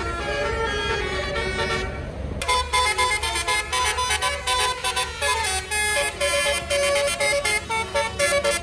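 Basuri 'telolet' musical bus horn playing a quick tune of stepped horn notes. It grows louder and busier about two and a half seconds in.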